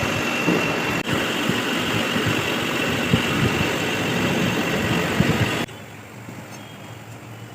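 Metal lathe running while boring out a centre pin bush: a steady machining noise with a thin high whine. It drops abruptly to a much quieter hum near the end.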